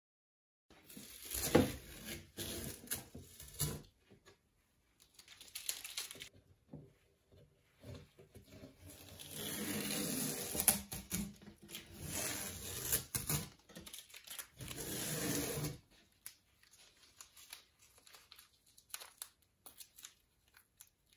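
Masking tape being peeled off the edges of a watercolour painting in several ripping pulls, the longest lasting several seconds, followed by faint scattered handling ticks.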